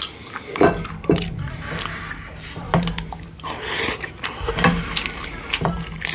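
Close-miked eating of gamjatang pork bone soup: utensils knocking against the dish about five times, with wet squishy mouth and broth sounds in between, over a low steady hum.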